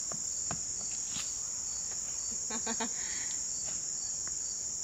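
Insects droning in the woods: a steady, high-pitched, unbroken trill, with a few faint clicks over it.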